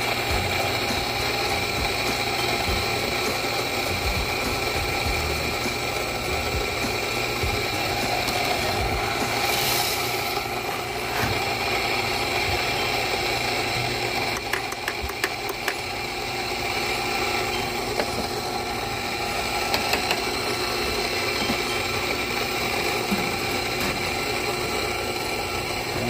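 A steady motor hum with several fixed tones, with a light rattle of clicks around the middle.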